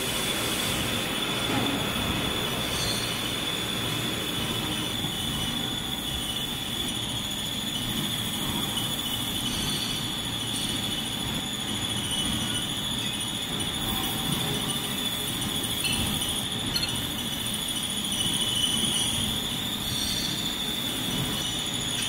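Steady machine-shop machinery noise with a constant high-pitched whine running throughout.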